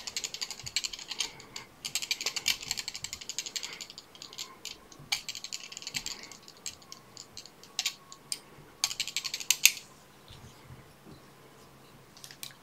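Rapid ratchet-like clicking in three runs, the longest about two seconds, with scattered single clicks between, as flat silver tinsel and thread are wound onto a salmon hook held in a fly-tying vise. The clicking dies down after about ten seconds.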